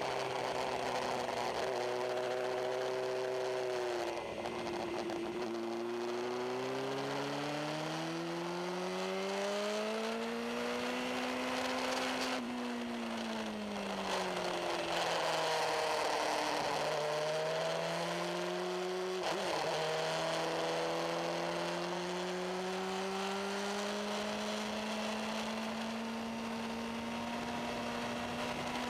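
Suzuki GSX-R750 K5's inline-four engine at speed, heard from on the bike over wind rush. The revs climb after a brief break about four seconds in, fall away from about twelve seconds as the bike slows, and climb steadily again after another break near nineteen seconds.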